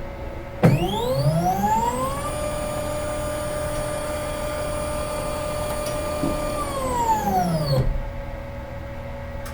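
Medical imaging scanner's whine, starting abruptly, rising in pitch for about a second and a half, holding steady for several seconds, then falling and cutting off. A steady machine hum with a fixed tone runs underneath.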